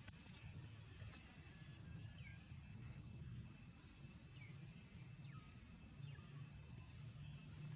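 Near silence: faint outdoor ambience with a steady low hum and a few faint, short falling chirps.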